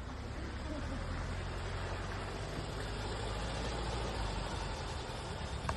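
VW 181's air-cooled flat-four engine running steadily with a low hum, a little louder after the first second.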